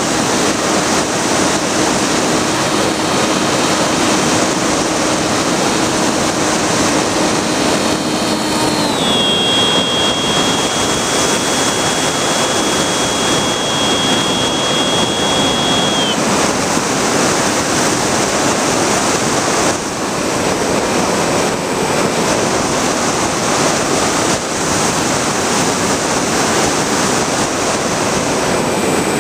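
Air rushing over the microphone of a Bixler foam RC plane's onboard camera in flight, with a thin high whine from its electric motor that dips slightly in pitch about nine seconds in and stops a little past halfway.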